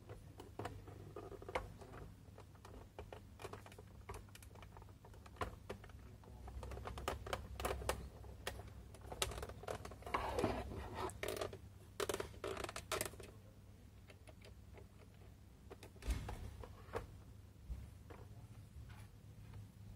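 Plastic parts of a clock kit clicking and rattling as they are handled and fitted together: coloured gears being set into a clear plastic case. Irregular light clicks, busiest in the middle, with a sharper knock near the end.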